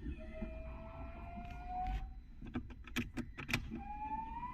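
Newly fitted electric fuel pump of a Renault Kwid priming at ignition-on: a rising whine for about two seconds, a quick run of clicks, then the whine rising again near the end. Fuel has not yet reached the engine, so the ignition is being cycled to prime the system.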